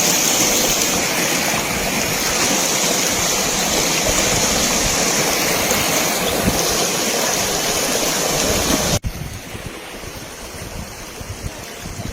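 Rushing water of a flooded river that has burst its banks, a loud steady rush that cuts off suddenly about nine seconds in and is followed by a quieter rush.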